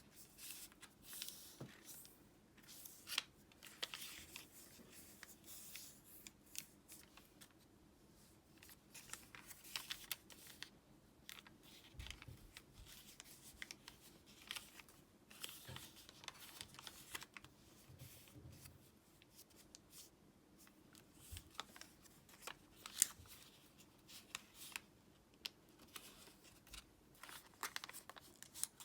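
Origami paper being handled and folded by hand: faint, intermittent rustling and crinkling with small clicks as the paper is creased.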